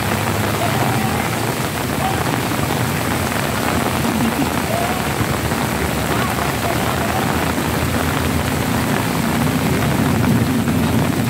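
Heavy rain falling steadily, a dense even hiss with a low rumble underneath, and faint distant voices now and then.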